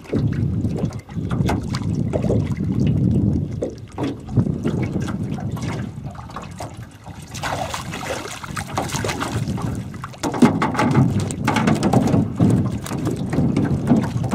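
Water splashing as a hooked catfish thrashes at the surface while it is hauled up on a trotline, in bouts from about halfway through, loudest near the end. Low wind rumble on the microphone underneath.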